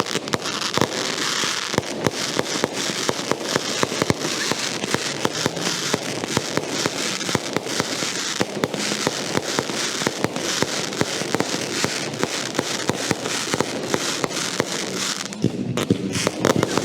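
Fireworks crackling and popping, a dense run of many sharp cracks over a hiss that goes on without a break, changing near the end.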